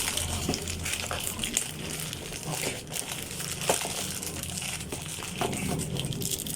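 Packaging being unwrapped and handled by hand: irregular crinkling and rustling with scattered small clicks, over a steady low hum.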